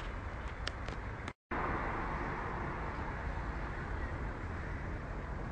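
Steady outdoor city background noise, broken by a brief total dropout about a second and a half in.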